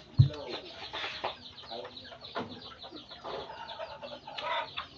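Close-up chewing and lip smacks from a mouthful of rice and vegetables, many short clicks in a row, with chickens clucking in the background.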